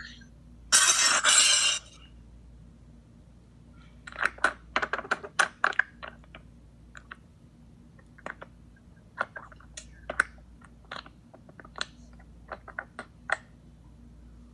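Staged car crash: one loud burst of noise lasting about a second, then many scattered sharp clicks and clinks over the next ten seconds.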